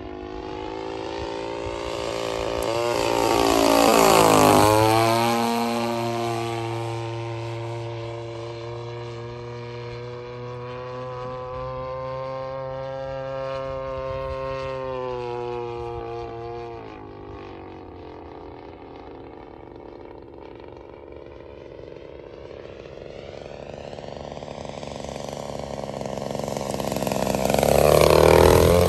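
The 55cc two-stroke gasoline engine of a large radio-controlled FW-190 model plane in flight. It swells to a loud fly-by about four seconds in, its pitch dropping as it passes, then runs steadily at a distance, falls in pitch and quietens about two-thirds of the way through, and comes back loud for a low pass near the end.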